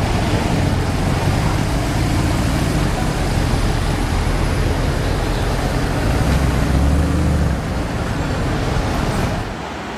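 Mercedes-Benz SLS AMG's 6.2-litre V8 running loud as the car pulls away along the street, loudest about seven seconds in and falling off near the end.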